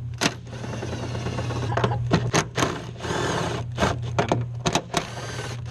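Irregular clicks, knocks and rattles of a small Odyssey PC680 battery being shaken by hand in its modified metal tie-down, with a brief squeak about three seconds in, over a steady low hum.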